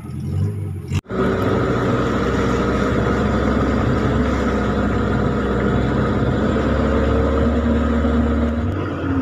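Off-road 4x4's engine running steadily at low revs as it crawls through a shallow rocky river, with tyre and water noise underneath. A brief gap about a second in.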